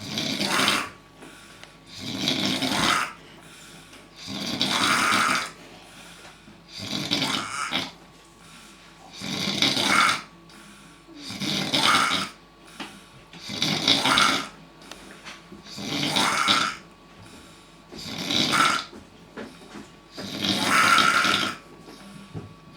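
Loud, regular snoring, one snore about every two seconds.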